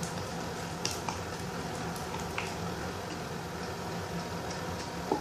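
Glue-and-detergent slime being stirred in a cup: faint wet squishing with a few light clicks.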